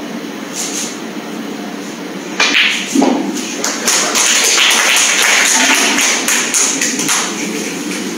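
Audience applauding: a burst of clapping that starts suddenly about two and a half seconds in and dies down near the end.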